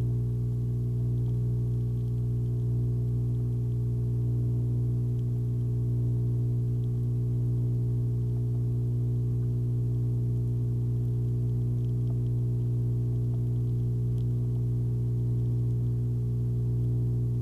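A steady low hum with several overtones, unchanging throughout.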